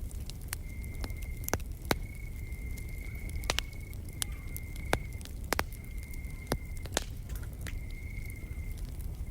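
Campfire crackling, with irregular sharp pops over a low rumble of burning wood, and an insect trilling steadily at one high pitch in phrases of about a second with short breaks between them.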